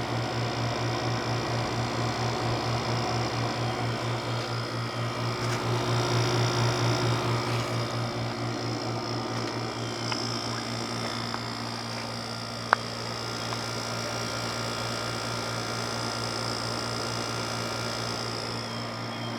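Haier 6000 BTU window air conditioner (HWR06XC3-T) running with its compressor cooling: a steady, rapidly pulsing low hum under the even rush of its fan. A single sharp click comes about two-thirds of the way through.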